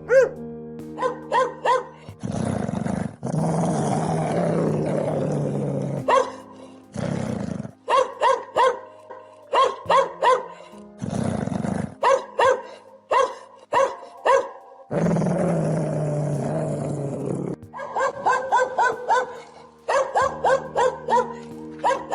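Dog barking in quick runs of short barks, with several long snarling growls in between, over background music.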